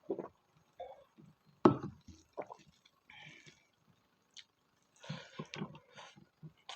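Close-miked wet chewing and mouth sounds of someone eating fatty pork: irregular squishy smacks and clicks, the loudest about one and a half seconds in.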